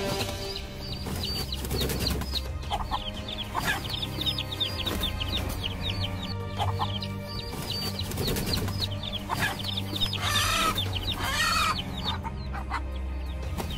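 A hen clucking and squawking in a fight, over a rapid stream of high chick peeps; the harshest squawks come about ten seconds in. Background music with a low steady drone runs underneath.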